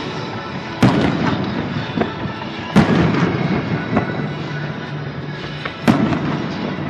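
Fireworks shells bursting: three loud bangs, about a second in, near the three-second mark and near the end, each trailing off in a rumbling echo, with smaller pops between. Music plays throughout underneath.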